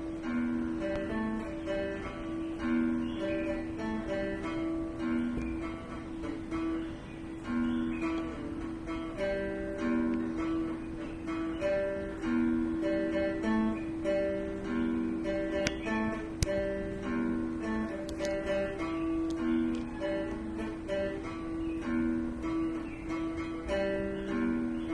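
Acoustic guitar music, plucked and strummed in a repeating pattern.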